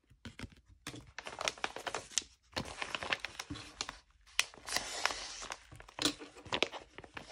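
Kraft paper mailer being slit with a box cutter and pulled open: irregular crinkling and tearing of stiff paper with many small scrapes and clicks, in short bursts with brief pauses.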